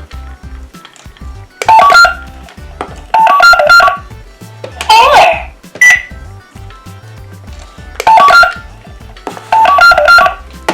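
Disney Princess toy cash register making its electronic checkout sounds as items are scanned: bursts of sliding tones, single beeps and short jingles of stepped tones, repeating about every three seconds.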